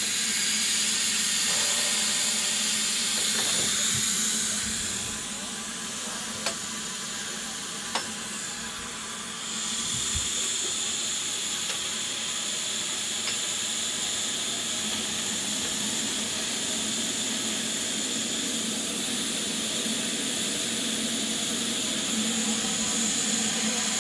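Steam hissing steadily from the low-down pipework of the Ffestiniog Railway double Fairlie locomotive Merddin Emrys. The hiss is louder for the first few seconds, eases for a few seconds, then goes on steadily, with two short metallic clicks in the lull.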